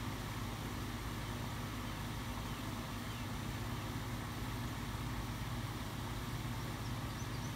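Steady low machine hum, like an engine or motor running without a break, over a constant background hiss.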